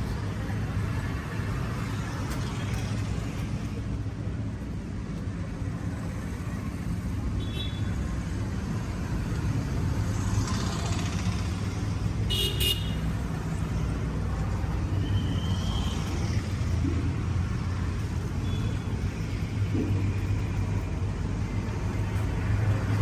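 Street traffic: a steady low rumble of engines, with a short car horn toot about halfway through.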